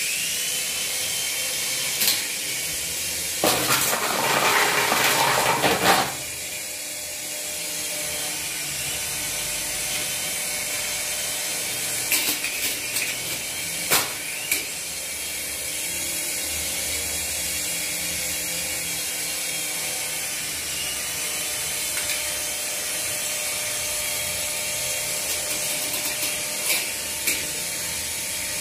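Small electric motors and spinning rotors of toy RC helicopters, a steady high-pitched whine made of several tones at once. It grows louder and rougher for a couple of seconds early on, and a few sharp knocks come through now and then.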